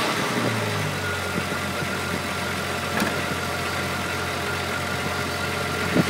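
Volkswagen Mk3 VR6 engine falling back from a rev and settling into a steady idle, with one sharp click about halfway through.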